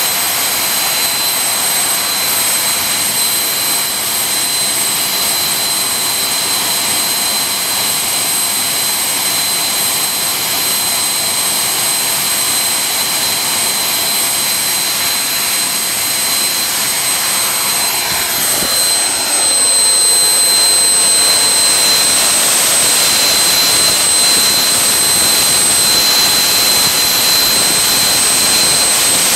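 Homemade jet engine running at full throttle on a trailer test rig, at a 4:1 compressor pressure ratio: a loud, steady rush of noise with several high, steady whistling tones over it. About two-thirds of the way through, it turns louder and hissier.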